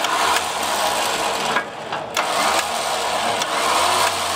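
Badland Apex 12,000 lb electric winch running, its motor and gear train reeling in the synthetic rope, with a short dip about a second and a half in.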